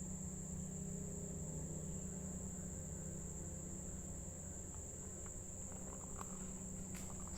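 Crickets trilling in a steady, continuous high-pitched chorus, with a faint low hum underneath.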